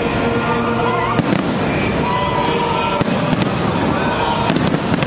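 Aerial fireworks shells bursting overhead: sharp bangs at irregular intervals, one about a second in, a few around three seconds in and a quick cluster near the end, over a continuous din of the display.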